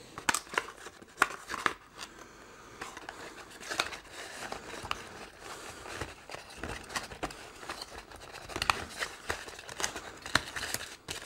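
A small cardboard box and its packaging being handled by hand: irregular rustling and crinkling with scattered light clicks and taps as an accessory is taken out and turned over.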